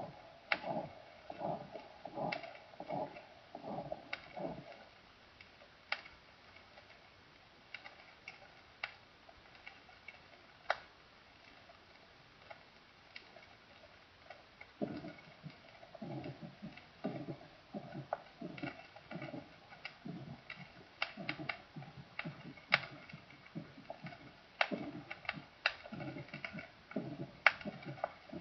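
Recorded heart sounds: soft rhythmic thuds, about two a second, that stop about five seconds in and start again about halfway through. Surface clicks and pops from an old record run throughout.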